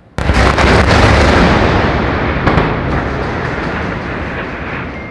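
A bomb blast from an airstrike goes off suddenly: a loud bang, then a long rolling rumble that slowly fades. A few sharp cracks come about two and a half seconds in.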